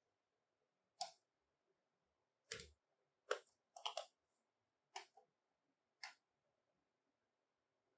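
Small plastic toy pieces being handled and set down: a string of sharp little clicks and taps, about seven in all, spaced irregularly with near silence between them.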